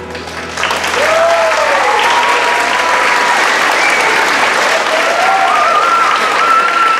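Audience applauding, breaking out about half a second in and staying loud, with several cheering whoops over the clapping.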